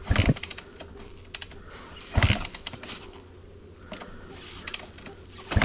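Dirt bike being kick-started three times without catching, each kick a short burst of the engine turning over. The bike was laid over on its side and no longer starts on the first kick.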